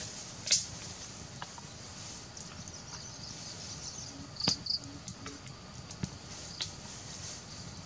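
Wood fire crackling, with a few sharp pops, over a steady high-pitched hiss.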